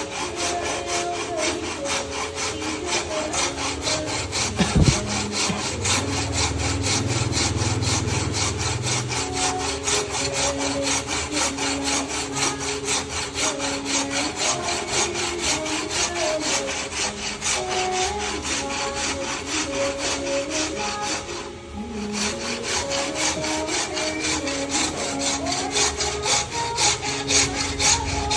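Hand saw cutting through wood in quick, even back-and-forth strokes, run along a joint to close up a gap that is slightly too wide. A single thump comes about five seconds in, and the sawing stops briefly near 22 seconds.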